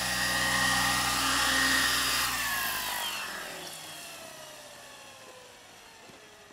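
Electric RC helicopter (Gaui Hurricane 425) whining steadily in flight; about two seconds in the motor is cut and the whine drops in pitch and fades away as the rotor spins down.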